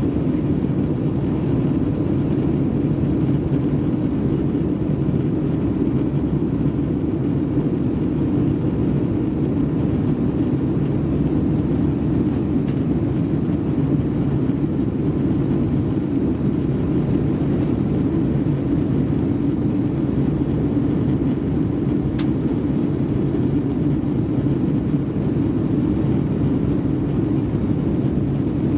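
Steady cabin noise inside an Airbus A319-111 on descent, heard from a window seat: airflow over the fuselage and the drone of its engines make an even low rumble with a faint steady hum.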